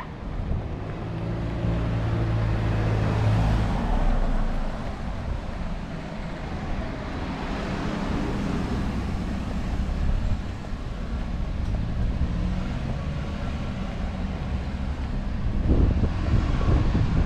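Road traffic: a car engine passing close by, over a steady rumble of traffic from the Tomei Expressway above. Wind buffets the microphone near the end.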